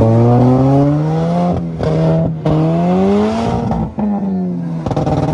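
Mini Cooper's engine revved hard in repeated rising pulls: the pitch climbs, drops back about a second and a half in, climbs again from about two and a half seconds, and falls away near four seconds.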